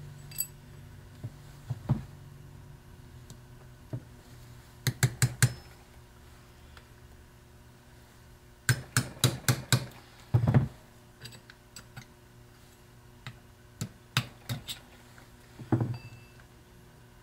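Ball-peen hammer striking metal to break free and drive out the pin that holds the Bendix drive on a 12-volt Ford tractor starter's shaft. The strikes are sharp metallic knocks in two quick runs of about five, with a duller knock after each run and lighter clinks of tools and parts between.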